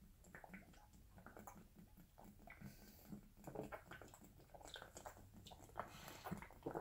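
Faint, repeated gulping and swallowing as a man chugs malt liquor straight from a large bottle.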